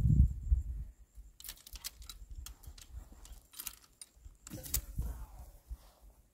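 Wire strainers being worked to pull a tight barbed fence wire down, giving a scatter of sharp clicks and rattles, after a low rumble in the first second.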